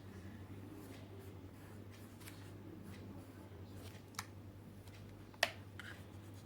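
Pencil moving lightly over drawing paper, faint scratching, with a few soft clicks about four and five and a half seconds in, over a steady low hum.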